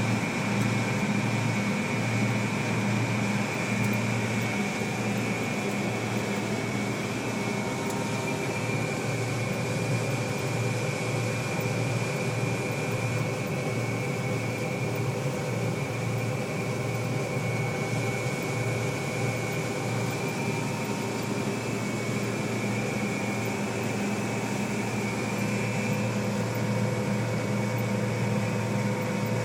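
Combine harvester running steadily while harvesting wheat: an even, unchanging drone with a low hum and a steady high whine.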